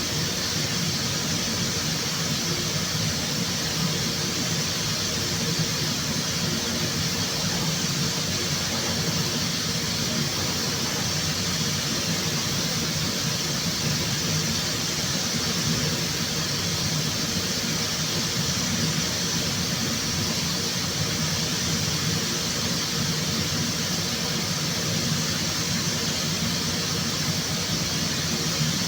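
Steady workshop machine noise: an even hiss over a low hum, unchanging throughout.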